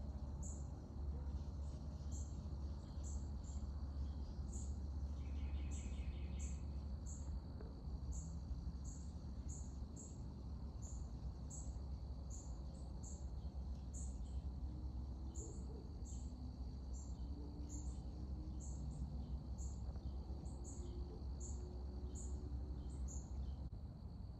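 Woodland insects calling: short high chirps repeating about twice a second over a steady high drone, with a brief rattling trill about five seconds in. A steady low rumble lies underneath.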